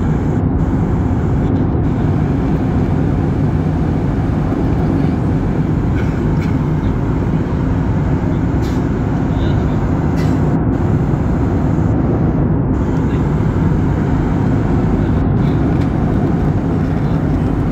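Steady roar of a jet airliner in cruise heard from inside the passenger cabin: engine and rushing-air noise, deep and unchanging.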